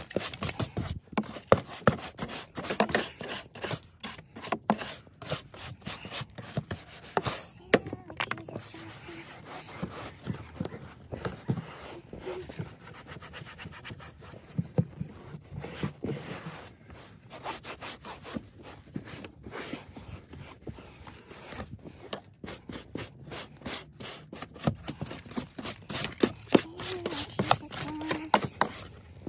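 A stiff-bristled hand scrub brush scrubbing minivan plastic floor trim and carpet in rapid back-and-forth strokes, mixed with a cloth rubbing over the plastic. The scratchy strokes are loudest in the first few seconds and again near the end.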